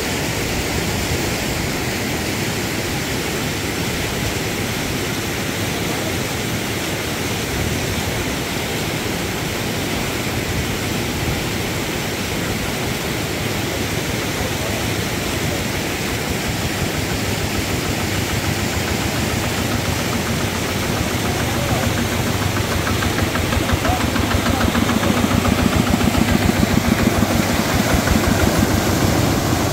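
Steady rushing noise, like fast-flowing water, with a small engine running under it that grows louder for several seconds in the last third and then eases off.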